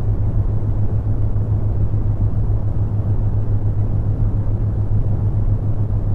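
Steady brown noise: a deep, even hiss weighted toward the low end, with a steady low hum underneath from the theta-wave binaural tone.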